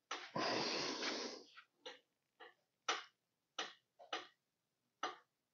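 A man's hard, strained breathing from heaving on a long cheater pipe: one long forced exhale near the start, then short sharp breaths every half second or so.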